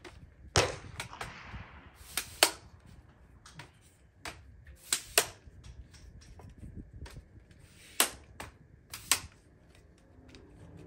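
A carbon tripod being unfolded and set up, its leg locks and head clicking and knocking, among sharp gunshots from other shooters on the range. There are about eight cracks at uneven spacing; the ones about half a second in and about eight seconds in trail off in a long echo.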